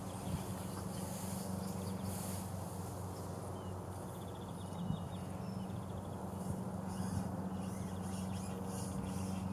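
Small birds chirping and trilling intermittently over a steady low hum.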